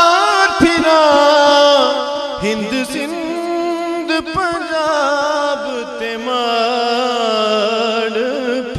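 Sung kafi: a solo voice holding long, wavering, ornamented notes in Sufi devotional style.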